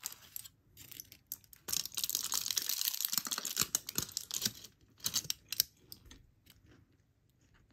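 Packaging crinkling and tearing as a wrapped bread product is opened by hand. The rustling is densest and loudest from about two to five seconds in, then thins out.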